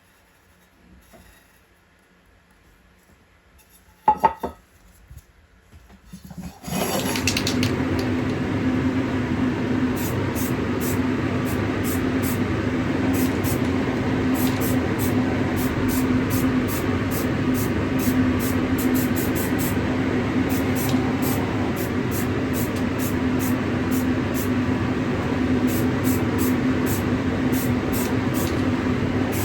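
A single sharp knock, then a powered workshop tool starts about seven seconds in and runs steadily with a constant hum under a rushing noise and a fast patter of light ticks.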